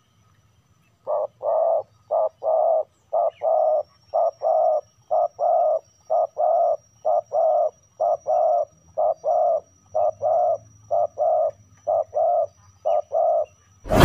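Spotted dove giving a long run of coos in pairs, a short note then a longer one, about one pair a second. A loud bell-like ding breaks in at the very end.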